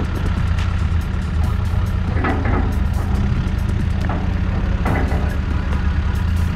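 Caterpillar backhoe loader's diesel engine running steadily under work, with two brief louder noises from the front bucket working the dirt, about two and five seconds in.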